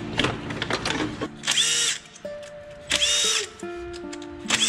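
Cordless power driver run in three short bursts about a second and a half apart, each winding up and then down, with some handling clicks before them. Background music plays underneath.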